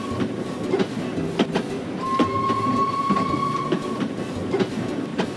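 Cartoon toy train sound effect: rhythmic clickety-clack of wheels running on track, with a steady high tone held for a second or two in the middle.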